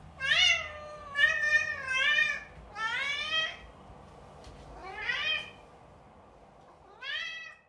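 Domestic cat meowing about six times: drawn-out calls that rise and fall in pitch, separated by short pauses, with the later ones quieter and more spaced out.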